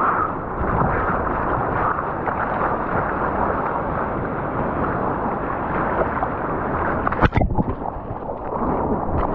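Sea surf rushing against the shore with wind on the microphone, a steady loud wash of noise, broken by one sharp knock about seven seconds in.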